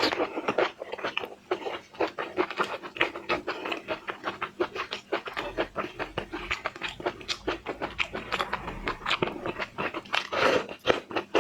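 Close-miked eating of seafood, chewing and crunching: a quick, uneven run of crisp clicks and crackles, with a louder crunch near the end.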